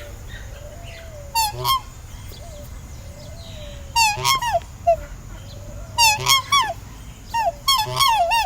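Swans honking: loud, nasal calls in clusters of two to four, a new cluster every two seconds or so, with softer, lower calls in between.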